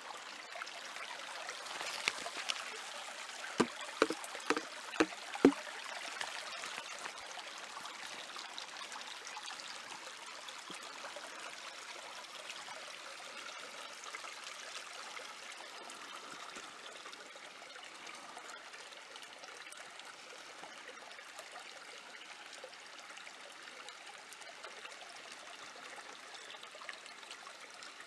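Water sloshing and swirling in a plastic gold pan as gravel is panned by hand, over a small creek running steadily. About four seconds in comes a quick run of five sharp knocks, roughly two a second.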